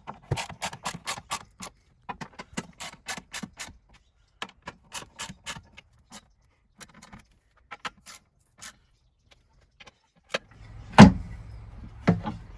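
Ratchet driven with a number 6 Allen bit clicking in quick runs as the seat swivel's mounting bolts are tightened, the clicks thinning out as the bolts come tight. Two heavy knocks near the end.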